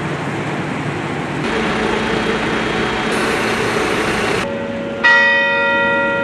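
Steady street and traffic noise, then about five seconds in a single loud church bell strike that rings on with several clear tones, slowly fading.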